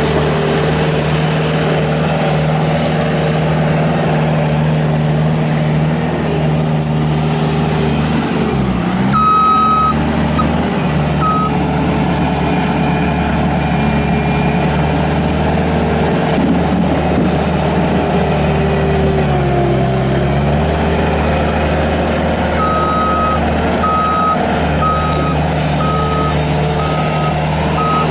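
Kubota diesel engine of a Bobcat S250 skid steer loader running, its note dipping briefly twice as if pulled down under load. A backup alarm sounds briefly about nine seconds in and beeps steadily, a little more than once a second, near the end.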